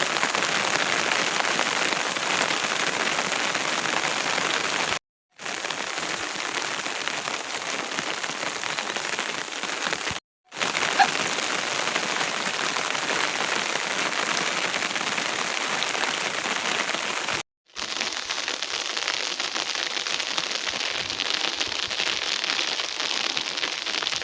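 Steady rain falling, an even hiss with no let-up, broken three times by a short gap of dead silence.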